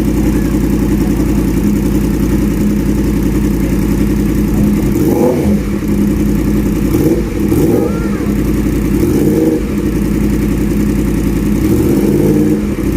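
Yamaha MT-10's crossplane inline-four running through an SC Project aftermarket exhaust, idling steadily with about four short throttle blips that rise and fall in pitch. The first blip comes about five seconds in and the last near the end.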